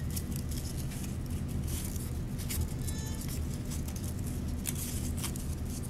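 Paper strip crinkling and rustling as it is curled tightly between fingers, with many short scratchy ticks over a steady low hum.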